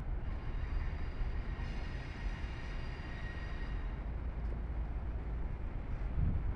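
Low, steady rumble of an approaching diesel passenger locomotive, not yet close.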